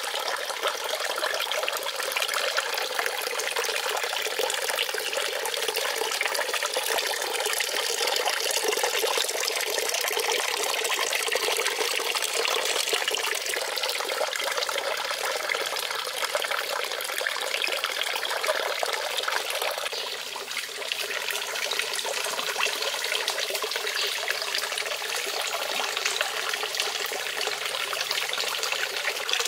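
Water pouring from a bamboo spout into a shallow pond, a steady trickling and splashing.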